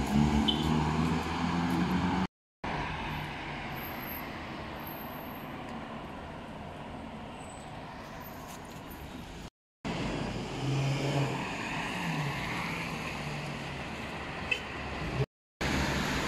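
Street traffic: a vehicle engine runs close by at first, then gives way to a steady traffic hum with another vehicle passing about eleven to thirteen seconds in. The sound is broken by three brief silent dropouts.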